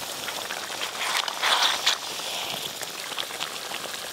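Rohu fish curry sizzling and bubbling in a metal wok while a steel spatula stirs it, scraping and clicking against the pan. The stirring is louder about a second and a half in.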